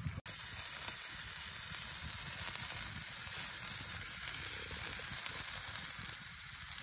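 Italian sausages sizzling on a wire grill grate over glowing campfire coals: a steady high hiss.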